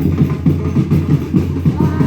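Music with a steady rhythmic beat, heavy in the low end, with a voice faintly over it near the end.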